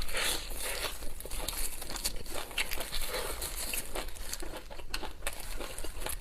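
Food packaging being handled, crinkling and rustling in a dense run of small irregular crackles.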